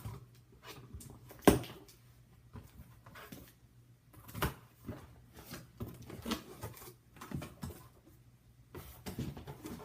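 Cardboard shipping box and packaging being opened and handled by hand: irregular rustling and scraping with scattered knocks, the sharpest about a second and a half in and another about four and a half seconds in.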